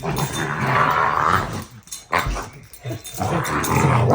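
American bully dog growling: a long, deep growl, a brief sound about two seconds in, then another long growl near the end.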